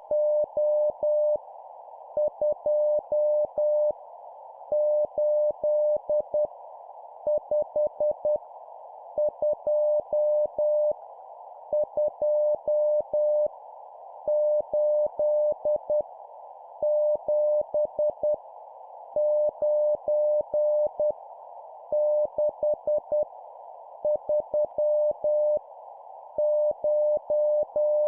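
Morse code practice tone: a steady mid-pitched beep keyed in dots and dashes, sending random digits at 10 words per minute, one digit about every two and a half seconds. A steady band of hiss lies under it.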